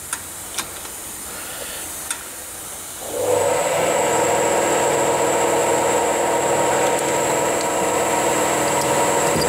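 A few light metallic clicks of a spanner on a pipe union, then about three seconds in a loud, steady machine hum with a high whine starts up and runs on.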